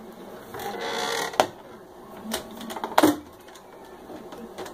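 White plastic flip-down medicine cabinet being swung up and shut under a pull-out pantry shelf. A brief sliding rustle is followed by a sharp click, then more clicks and a louder plastic clack about three seconds in.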